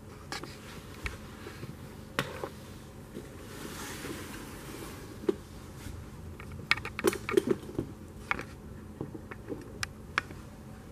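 Quiet room tone with scattered light clicks and taps, with a quick cluster of them about seven seconds in.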